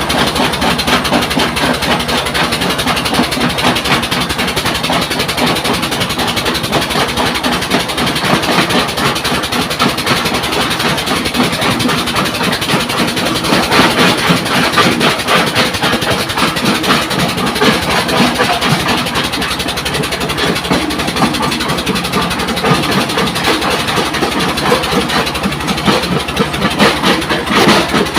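Stone crusher machine running under load, its engine drone mixed with the continuous clatter and crunch of rock being broken up.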